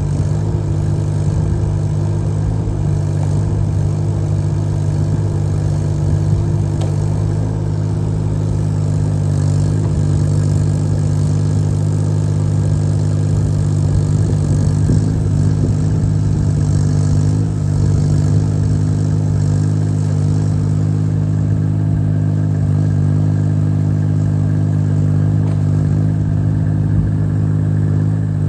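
Mini excavator's Yanmar diesel engine running steadily at working speed, with some added hiss and clatter in the middle stretch.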